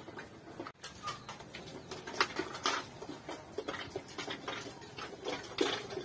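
A flock of domestic pigeons feeding: many light, irregular taps and clicks of beaks pecking at grain, mixed with low coos here and there.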